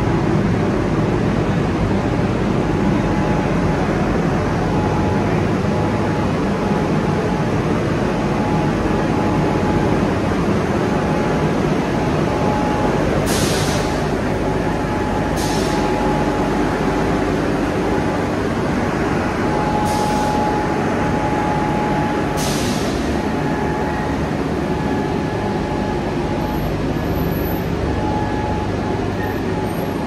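Steady industrial noise from an aluminium melting furnace plant: a loud, even rumble with a faint steady whine. It is broken four times, about halfway through and again about two-thirds of the way through, by short sharp hisses.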